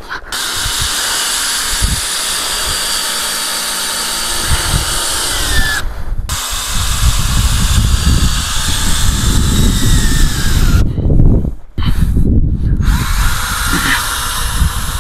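Power drill running in long runs while driving small rubber-gasketed roofing screws, with short pauses about six and eleven seconds in.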